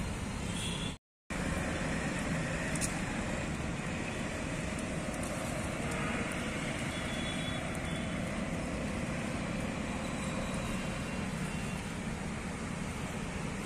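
Steady low rumble of distant traffic, broken by a brief total dropout about a second in.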